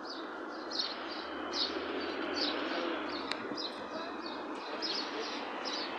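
Small birds chirping over and over, a few short high chirps a second, over a steady background hum.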